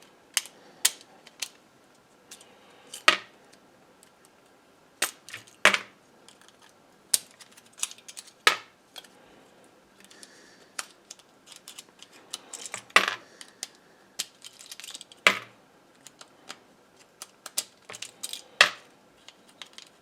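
Small metal and plastic parts of an electrical contactor clicking and clinking as they are prised and knocked loose by hand. The sharp strikes come irregularly, a dozen or so loud ones among many lighter ticks.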